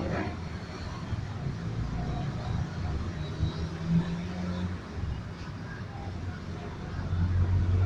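A low, steady background rumble, with a short low hum about halfway through.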